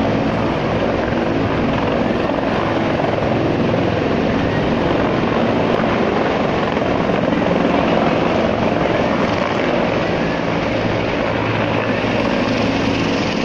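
Bell UH-1H Huey helicopter flying past at low height, with steady loud rotor and turbine noise.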